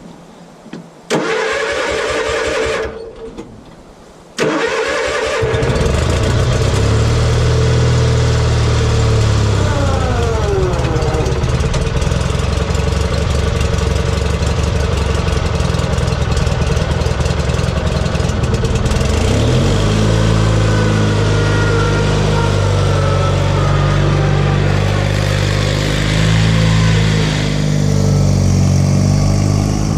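Old riding lawn mower engine cranked by its starter, catching about four seconds in and then running steadily, with a higher whine that now and then falls in pitch.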